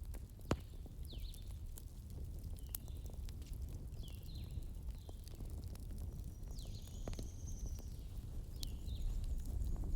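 Campfire crackling: scattered sharp pops and clicks, one louder pop about half a second in, over a steady low rumble. Short high chirps repeat about once a second alongside.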